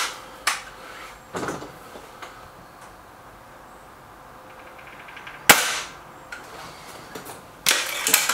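Hatsan 900X break-barrel air rifle fired once, a single sharp crack about five and a half seconds in. Shorter clacks and clicks of handling come before it and in a cluster near the end.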